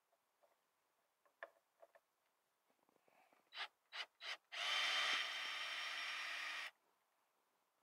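Cordless drill driving screws out of a wooden box lid: three short trigger blips, then about two seconds of steady motor whine that stops abruptly. A few faint clicks come before it.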